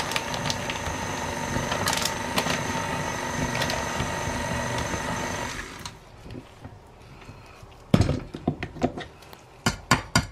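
KitchenAid tilt-head stand mixer running, its wire whisk beating a thick coconut filling in a stainless bowl: a steady whir with a thin whine, stopping about six seconds in. A sharp knock follows about two seconds later, then a quick run of clinks and knocks near the end.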